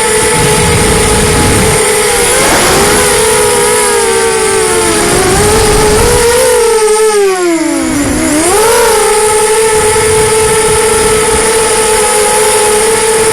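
Racing quadcopter's brushless motors and 5-inch props whining steadily, the pitch sagging a few seconds in and dropping sharply about eight seconds in before climbing back as the throttle is cut and reapplied. Gusting wind buffets the microphone underneath.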